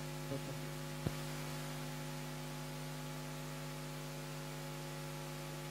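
Steady electrical mains hum with a faint hiss, and one sharp click about a second in.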